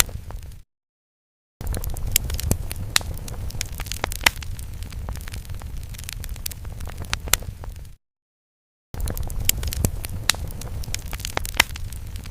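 Fire sound effect: a steady low rumble with many sharp crackles and pops, as of burning wood. It cuts out to total silence for about a second near the start and again about two-thirds of the way through, then resumes.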